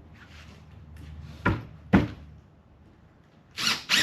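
Two sharp knocks about half a second apart, a little past the middle, from handling and screwing on the plywood cabinet box as its back panel is fastened.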